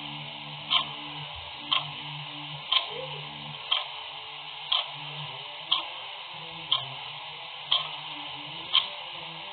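Clock ticking steadily, one tick a second, over a faint steady hiss.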